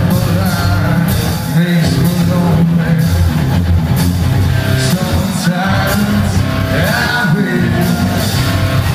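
Live rock band playing, with a male lead singer singing into the microphone over the band.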